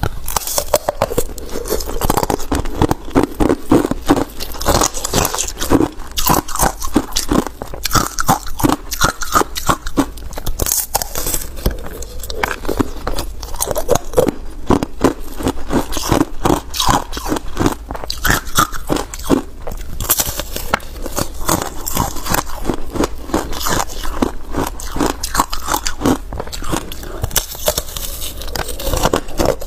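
Biting and chewing a thin sheet of frozen passion fruit ice: dense, continuous cracking crunches as the ice snaps and is chewed.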